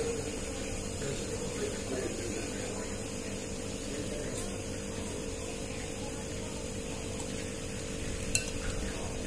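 Noodles being slurped and chewed from a bowl with chopsticks over a steady hum, with one sharp clink of a spoon against the bowl about eight seconds in.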